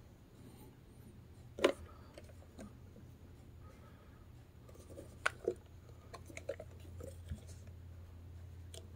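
Handling noise from a plastic portable cassette player being turned over in the hands: a few short clicks and taps, the clearest about two seconds in and a pair just past the middle, over a low steady hum.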